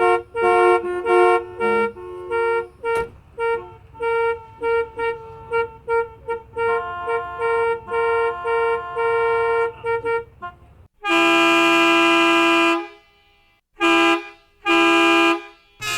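Vehicle horns sounding. A rapid series of short toots runs for about ten seconds. Then comes one long, louder blast of nearly two seconds, followed by two shorter blasts.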